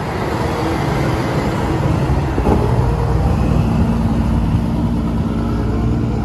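Diesel semi truck hauling a tanker trailer, its engine running steadily under load as it drives off down the street.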